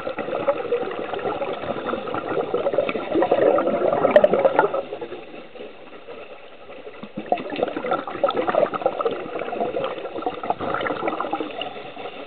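Scuba divers' exhaled air bubbling out of their regulators, heard underwater. It comes in two long bursts of bubbling: the first fades about five seconds in, and the second starts about two seconds later.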